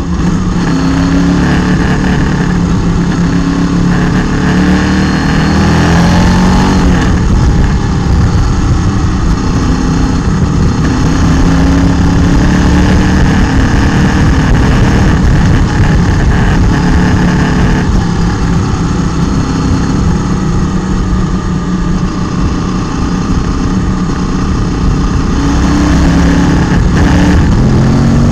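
Motorcycle engine heard from an onboard camera, running under load on an uphill ride, its pitch rising and falling several times with throttle and gear changes. A steady rush of wind and road noise runs under it.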